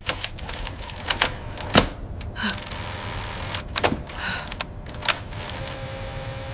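A run of irregular sharp clicks and knocks, a few of them louder, over a low rumble.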